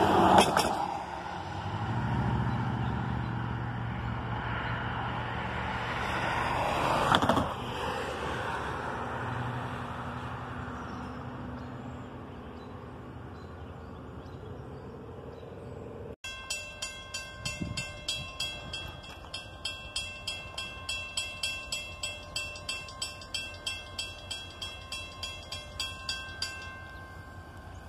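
A diesel locomotive's low engine drone dies away down the line, with one short loud noise about seven seconds in. Then a railroad grade-crossing bell rings steadily, about two strokes a second, as the EMD GP30-hauled excursion train approaches the lowered gates.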